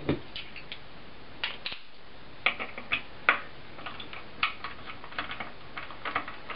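Scattered light clicks and taps of a small hex driver being lifted from its stand and set into the pan-head screws of a small RC engine's carbon fan cover to undo them.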